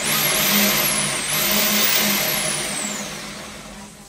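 High-pressure drain jetter running, its hose nozzle spraying into a floor drain pipe: a loud hiss with a high whine that rises sharply and sinks back about once a second. The hiss dies away near the end.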